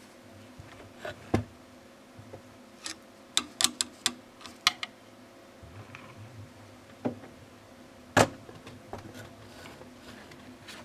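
A screwdriver tapping and clicking against the plastic and metal parts of an opened Epson inkjet printer, around the ink carriage and its rail. The sharp clicks come irregularly, with a quick run of them a few seconds in and the loudest about eight seconds in.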